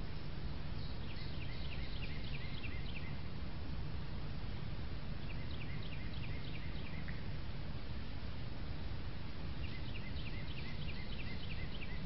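A songbird singing three times: each song is a quick series of about eight to ten short, evenly repeated high notes lasting about two seconds, starting about a second in, about five seconds in, and near the end. Under it runs a steady hiss with a low rumble.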